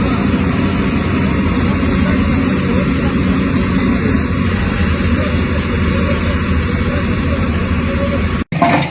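Heavy machine's engine running steadily and loud under a dense mechanical roar. It cuts off abruptly near the end.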